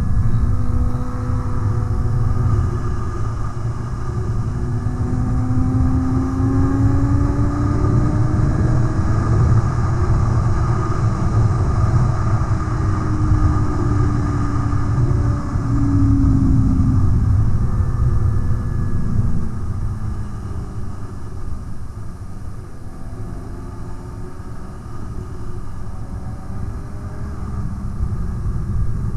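Sport motorcycle riding at road speed: a steady rush of wind on the microphone, with the engine note underneath. The engine's pitch climbs slowly over the first third and drops about halfway through, and the sound eases off for a while before picking up again near the end.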